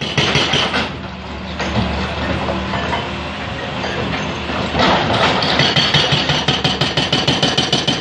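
Tracked excavator's diesel engine running while its hydraulic rock breaker hammers rock in fast, even blows. The hammering grows denser and louder in the second half.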